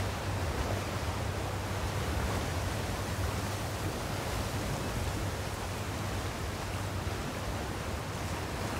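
Steady wind and sea noise: an even rush with a strong low rumble of wind on the microphone, over choppy water.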